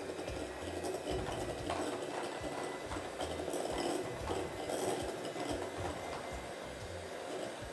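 Electric hand mixer running steadily, its two beaters whipping liquid cream in a glass bowl, with a faint steady whine over the motor.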